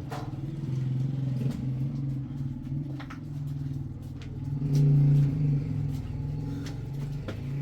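An engine running steadily, swelling louder briefly about five seconds in, with a few light clicks over it.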